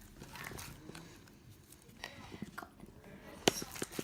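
Sticky, half-set fluffy slime being squeezed and pulled off the hands, giving irregular soft squelches and sticky clicks, with one sharp snap about three and a half seconds in.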